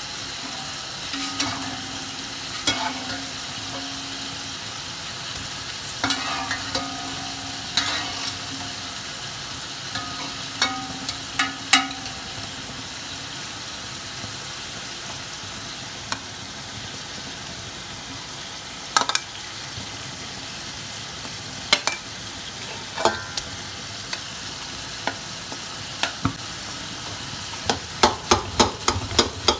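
Beef and fried onions sizzling steadily in an aluminium pot, with scattered clicks of a metal ladle against the pot. Near the end comes a quick run of ladle strikes as the mix is stirred briskly.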